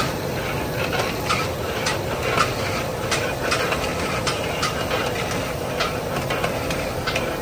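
Steady street-side rumble with irregular sharp metallic clicks and clinks, about two or three a second.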